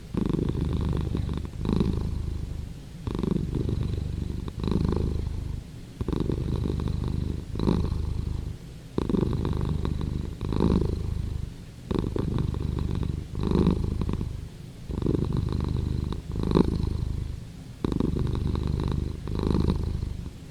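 Domestic cat purring close up: a continuous low rumble that swells and dips with each breath, about once every second and a half.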